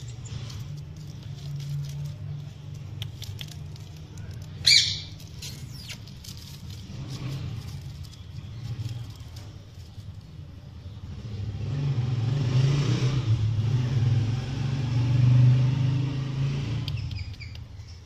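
Male Indian ringneck parakeet giving one short, loud, shrill call about five seconds in, with a few faint chirps and clicks, over a low steady rumble that swells in the second half.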